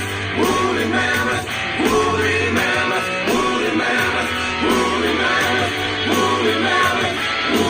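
Background music: a song with a steady bass line and a melodic phrase that repeats about every second and a half.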